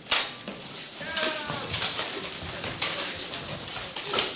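Armoured fighters clashing: a loud, sharp clang of steel just after the start, then a string of lighter metal knocks and clanks from blades striking plate and mail armour as they grapple. A brief voice-like sound is heard about a second in.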